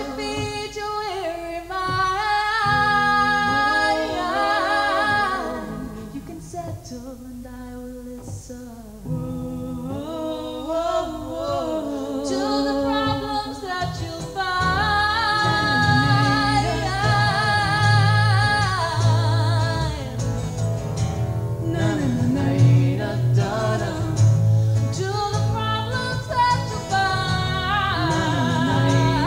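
A woman and a man singing a song in close harmony, with acoustic guitar and double bass. The singing is softer for a few seconds a quarter of the way in, and a strong, low double-bass line comes in about halfway through.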